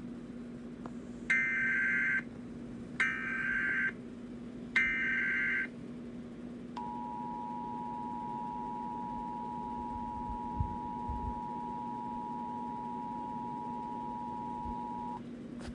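Emergency Alert System tones: three bursts of SAME header data tones, about a second each and a second apart, then the steady two-tone EAS attention signal held for about eight seconds, with a low steady hum beneath.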